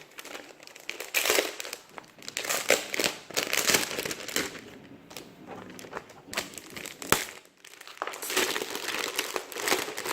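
Plastic packaging crinkling and rustling as it is handled, in irregular bursts, with a sharp click about seven seconds in.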